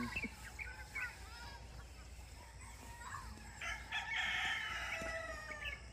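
A rooster crowing once: one long call of about two seconds, starting a little past halfway, with its pitch sagging toward the end. A few faint short chirps come earlier.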